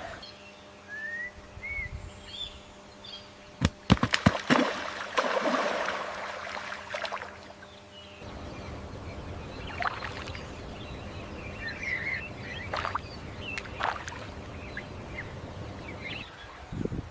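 Natural wetland ambience: scattered short bird chirps, with a cluster of sharp clicks and a rush of water splashing about four seconds in.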